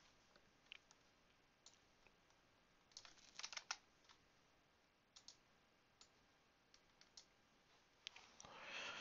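Computer keyboard typing, a short quick burst of keystrokes about three seconds in, with scattered single key or mouse clicks, faint against a quiet room. A soft hiss near the end.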